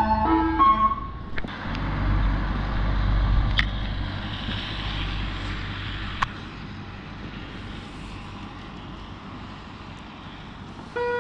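Ice cream van chime tune ending about a second in, then the rumble and hiss of a vehicle going by on the wet road, fading after a few seconds. The chimes start again near the end.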